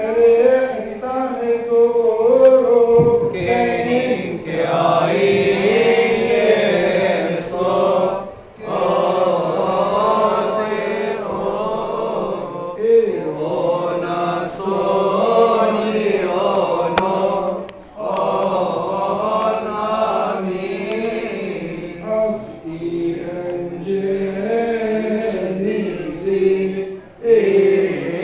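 Group of voices chanting a Coptic Orthodox liturgical hymn together, in long melodic phrases with two short breaks, about 8 and 18 seconds in.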